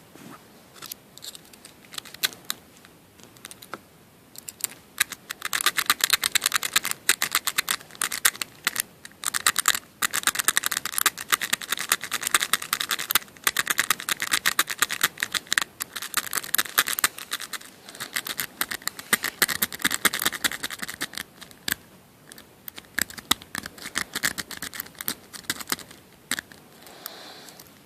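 A lock pick raking the pin stack of a Master Lock M15 five-pin padlock, making rapid metallic clicking and scraping. The clicks are scattered at first, come in a dense fast run for about fifteen seconds, then thin out again near the end.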